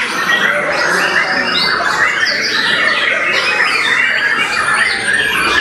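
White-rumped shama singing a fast, continuous run of chirps, trills and whistled glides without a break, a song packed with mimicked phrases (isian) of other birds.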